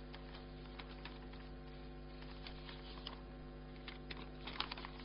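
Steady low electrical hum, with a few faint light clicks near the end.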